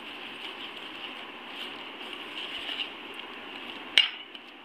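A steel spoon stirring and scraping a dry gram-flour and semolina mix in a steel bowl, with one sharp clink of the spoon against the bowl about four seconds in.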